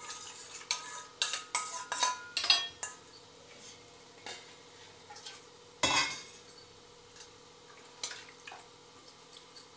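Wire whisk beating batter in a steel bowl, a quick run of metallic clinks over the first few seconds. About six seconds in a steel bowl or jug gives one louder ringing clank, and a few lighter metal taps follow near the end.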